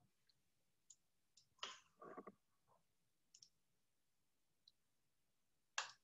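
Near silence broken by a few faint computer-mouse clicks, with a short faint noise about two seconds in and a sharper click just before the end.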